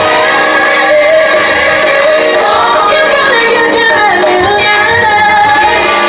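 A woman singing gospel, her voice gliding up and down in long runs over steady instrumental accompaniment.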